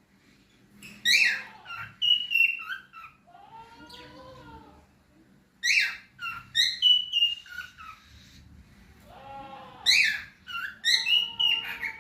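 Cockatiel whistling and chirping in three quick bouts of sharp, high notes, with a lower, drawn-out call between the bouts.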